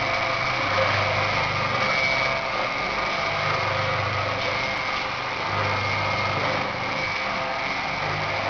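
Nut roasting machine running steadily: a constant mechanical hum with a high, even whine over a hiss, and no starts or stops.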